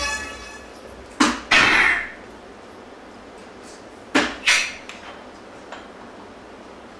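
Soft-tip darts striking a VS PHOENIX electronic dartboard twice, each sharp hit followed by the machine's scoring sound effect: a bull about a second in sets off a longer burst of sound, and a single 9 about four seconds in gives a quick double hit and effect.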